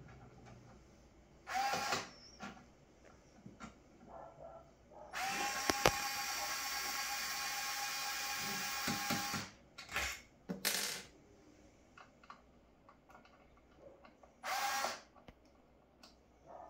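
Small electric screwdriver motor running in bursts as it backs out the fixing screws of a wall light switch: a short run, one long steady run of about four seconds, then two more short runs.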